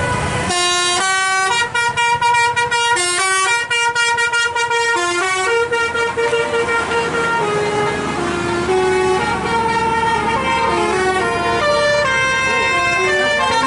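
Bus 'telolet basuri' musical horn playing a tune: a run of horn notes stepping up and down in pitch several times a second, starting about half a second in, with a few longer held notes midway.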